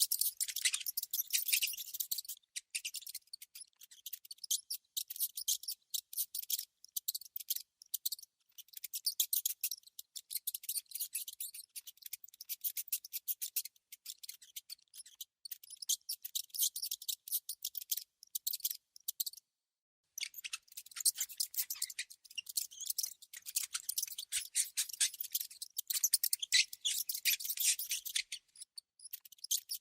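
Rodents making rapid, high-pitched scratchy clicking and chattering in dense runs, broken by one short pause about two-thirds of the way through.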